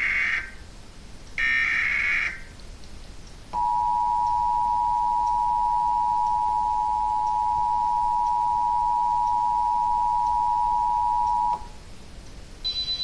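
Emergency Alert System test signals: the end of one SAME header data burst and then a second full burst, each a buzzy digital squeal about a second long. After a short gap comes the EAS two-tone attention signal, a steady two-note chord held for about eight seconds that cuts off abruptly.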